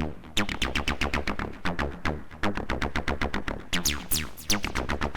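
TB-303-style acid bass line of rapid, evenly spaced notes played through a rectifier distortion, which flips the negative half of the waveform upward for a harsh, buzzy tone. A few notes about four seconds in sweep downward in pitch brightness like a resonant filter squelch.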